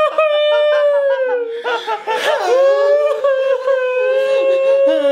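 Men wailing in loud, drawn-out cries, one long held howl after another, with a second, lower voice joining in near the end.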